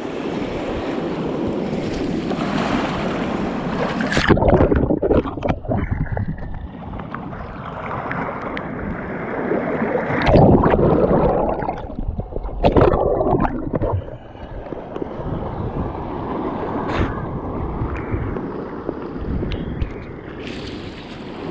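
Sea water surging and washing around a person on a rock reef, with heavy surges of surf about four, ten and thirteen seconds in. For most of the stretch the sound is dull and muffled, as a wave covers the camera, and it turns clear again near the end.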